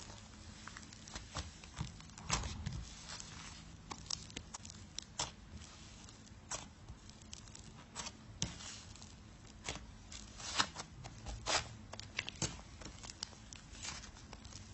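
Homemade slime being squeezed and pulled, giving irregular crackles and sharp little pops, a few louder than the rest, over a steady low hum.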